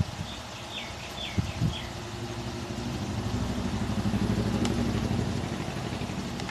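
A motor vehicle's engine passing by: a low running sound that swells over a couple of seconds, is loudest about two-thirds of the way through, then slowly fades. Before it come a click, a few short high chirps and two soft knocks.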